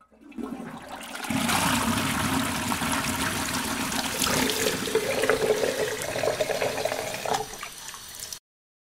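Water rushing and gurgling. It starts faint, swells about a second in, and cuts off suddenly near the end.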